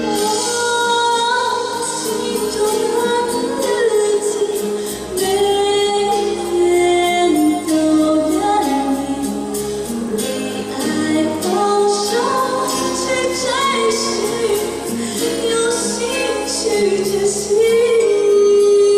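A woman singing a song into a handheld microphone over instrumental accompaniment, closing on a long, loud held note near the end.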